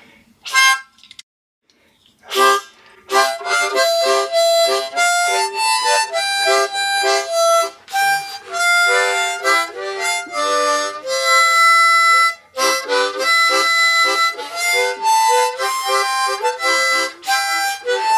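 Easy Rider harmonica played by mouth with cupped hands: a couple of short notes, then from about three seconds in a continuous tune of held notes and chords, with one brief pause for breath midway.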